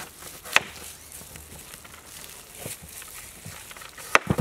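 Kitchen knife cutting through a peeled green papaya and scraping along its seed cavity, with a sharp knife tap about half a second in. Near the end comes a quick cluster of heavier knocks as the knife and cut papaya pieces hit the wooden board.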